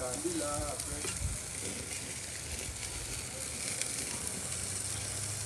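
Food frying in butter in a pan, a steady sizzle, with a utensil stirring and clicking against the pan now and then.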